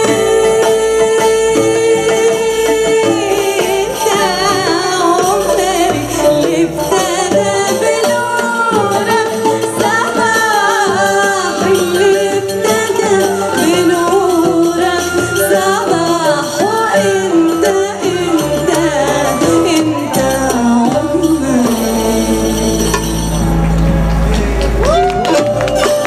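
Live Middle Eastern-style music: a woman singing a wavering melody, accompanied by oud and qanun, with a deep bass note held near the end.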